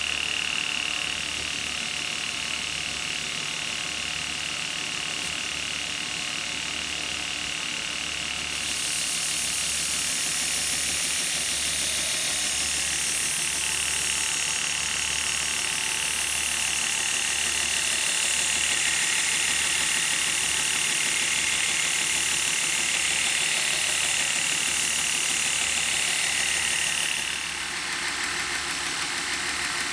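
A motor-driven sharpening machine running with a steady whine. From about nine seconds in until near the end, a knife's steel blade is held against the abrasive, adding a loud, even hiss of grinding.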